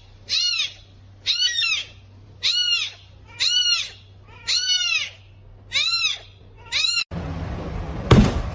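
A cat meowing over and over, about once a second, each meow rising and then falling in pitch. Near the end the meowing stops, a rush of noise follows, and there is one loud knock.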